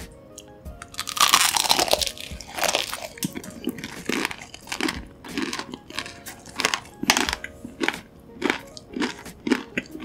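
Close-miked crunchy chewing of a dark crumb-coated snack on a stick, about two crunches a second, over soft background music. A loud rush of noise about a second in.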